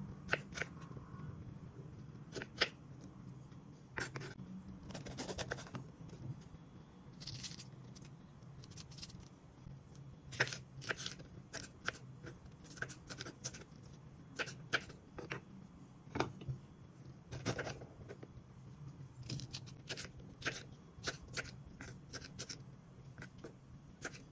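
Kitchen knife cutting bell peppers on a wooden chopping board: a long run of crisp, irregular cuts and taps of the blade on the board, some coming in quick clusters.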